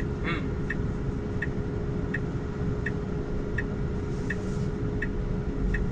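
Tesla turn signal ticking steadily, about one tick every three-quarters of a second, signalling a left turn. Under it runs a steady cabin hum and a low rumble.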